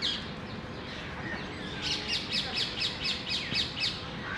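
A rapid run of about ten high, short chirps, each dropping slightly in pitch, about five a second for two seconds. A single chirp comes right at the start.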